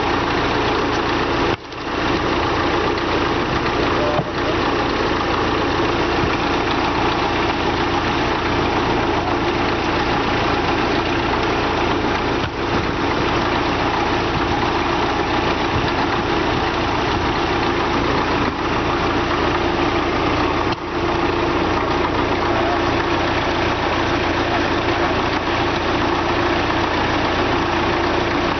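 Heavy diesel engine of a bulldozer idling steadily, with the sound dropping out briefly once or twice.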